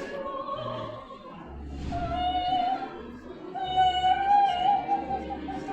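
Music with a high female voice singing long held notes with a slight waver.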